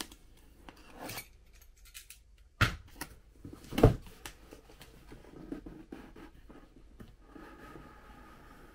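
A utility knife slitting a cardboard shipping box open, then cardboard scraping and rustling as the box is handled, with two sharp knocks about two and a half and four seconds in, the second the louder.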